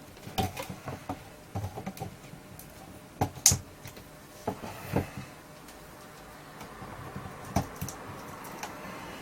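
Hard plastic parts of a small wireless speaker clicking and knocking as they are handled and fitted together, in irregular taps with the loudest about three and a half seconds in.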